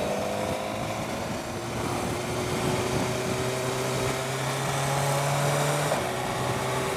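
A 2015 BMW S1000XR's inline-four engine running at a steady, easy pace while riding, with wind rushing over the microphone. The engine note drifts slowly in pitch, and one low tone drops away about six seconds in.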